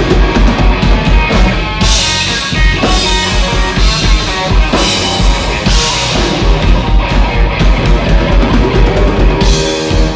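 Live rock band playing an instrumental passage on electric guitar, bass guitar and drum kit, with a steady driving beat. Cymbal crashes come about two, six and nine and a half seconds in.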